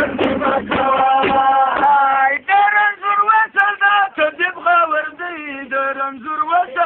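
A man sings a Pashto folk song in long, wavering held notes. Drum beats run under the voice for the first two seconds or so, then the voice carries on almost alone.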